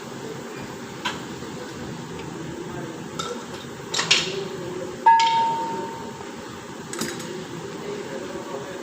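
Metal tools and parts knocking and clinking, five separate strikes. The loudest, about five seconds in, leaves a short ringing metallic tone.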